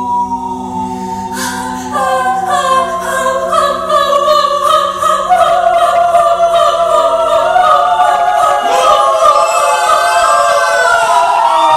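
Wordless vocal improvisation by a small mixed group of voices: a low male voice holds a steady drone, and about a second in several higher voices join with held notes and sliding, howl-like glides that overlap and rise and fall, evoking wolves howling.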